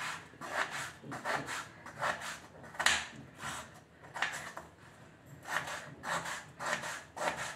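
Kitchen knife cutting a peeled potato into cubes on a plastic cutting board: short scraping knife strokes, about two a second, unevenly spaced.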